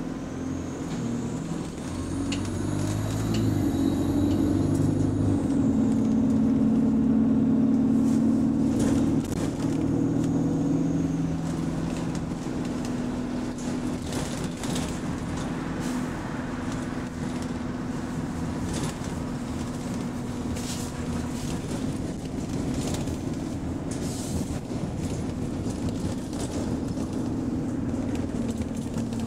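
Bus engine heard from inside the passenger saloon on the move, louder for several seconds near the start with a faint high whine rising and falling, then settling into a steady run with scattered small rattles. Its exhaust has been repaired, so the usual rapid exhaust rattle is gone.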